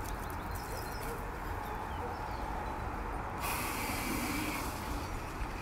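Garden hose running water into a bucket: a steady hiss that starts a little past halfway, over a low outdoor rumble.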